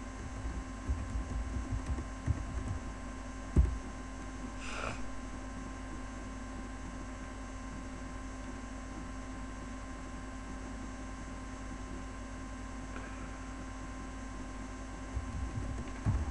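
Steady electrical mains hum on the microphone line. Over it come a few low thumps in the first few seconds, one sharper knock about three and a half seconds in, and more low thumps near the end.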